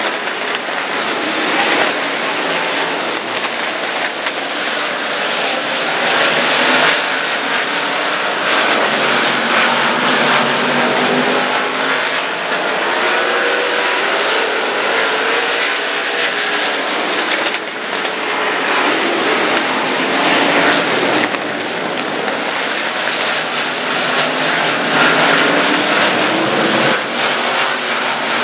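A pack of dirt-track modified race cars racing at speed, their V8 engines running together in a loud, dense drone. The engine pitch rises and falls as the cars pass and go through the turns.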